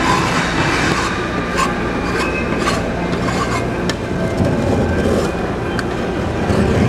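Metal spatula scraping and tapping across the frozen steel pan of a rolled ice cream machine, with a few sharp scrapes standing out over a steady low rumble.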